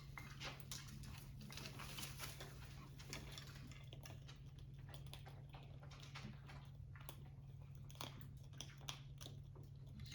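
Parrots crunching and nibbling matzo with their beaks: faint, irregular small crunches and clicks, over a low steady hum.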